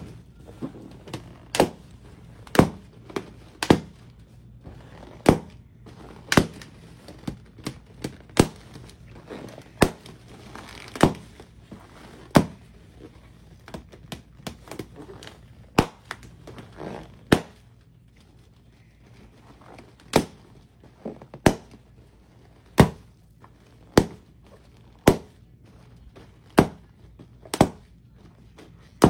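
A series of sharp knocks or thunks at irregular intervals, roughly one a second, some louder than others, in a small room.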